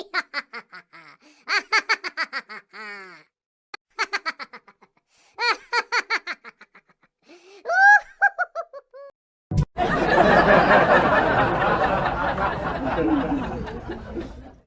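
Laughter sound effects one after another: a single person's pulsed 'ha-ha' laughs in several short bursts with silent gaps between them, then, from about ten seconds in, a dense laughter of many people together that fades out near the end.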